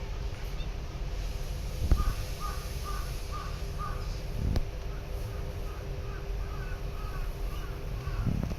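A bird, crow-like, calling in two quick runs of short repeated calls, about three a second, over a steady low hum, with a couple of low thumps.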